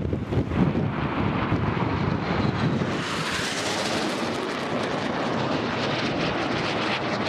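BAE Hawk T1 jet passing overhead, its turbofan noise swelling from about three seconds in into a broad, steady rush. Wind buffets the microphone at the start.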